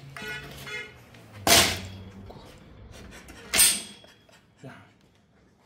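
Two loud knocks about two seconds apart: hand tools or parts striking the steel tube frame as an engine mount is bolted up, with a smaller tap near the end.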